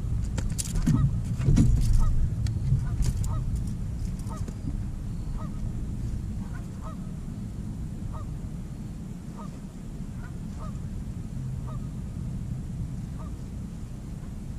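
A goose honking over and over, about one and a half honks a second. In the first few seconds there are louder knocks and rattles of handling in the boat.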